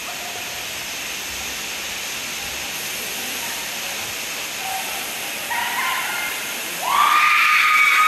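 Waterfall rushing steadily. Near the end a loud, held high note starts over the rush of water.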